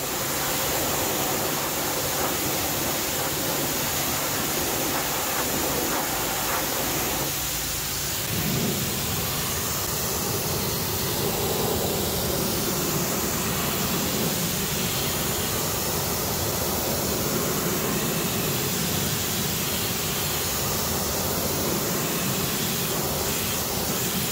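Pressure washer spraying through a wide 65-degree fan nozzle onto an alloy wheel and tyre: a steady hiss of water spray. A low hum sits under the spray for the first eight seconds or so, and then the spray's sound shifts.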